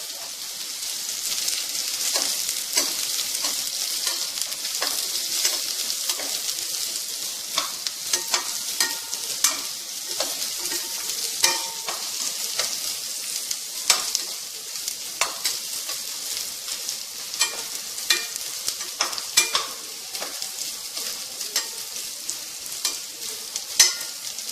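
Chopped onion and green chillies sizzling in oil and ghee in a kadai as they sauté until soft, with a steady hiss and frequent sharp clicks of the stirring spoon against the pan.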